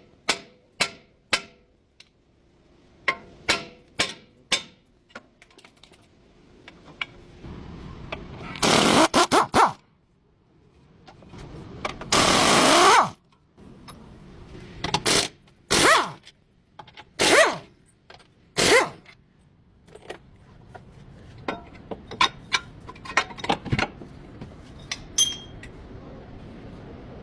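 Sharp metallic knocks and clicks of hand tools working on a car's front suspension, broken by two longer bursts of a power tool about nine and twelve seconds in, the second rising and falling in pitch, and several shorter bursts after.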